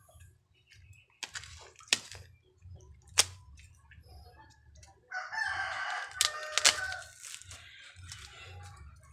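A rooster crows once, a single call of about two and a half seconds starting about five seconds in. Several sharp clicks and taps come from a plastic water-filter cartridge being handled.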